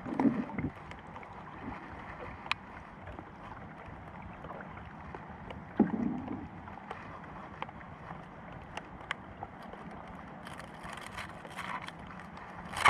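Steady hiss from a small boat on the water, with scattered light ticks and two dull knocks, one near the start and one about six seconds in, then a sharp loud knock at the very end.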